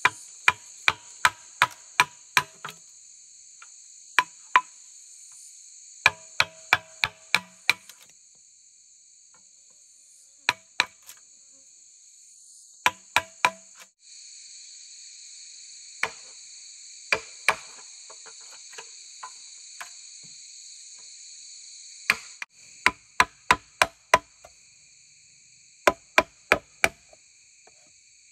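A blade chopping bamboo in quick runs of a few sharp strokes with pauses between. A steady, high insect drone runs underneath.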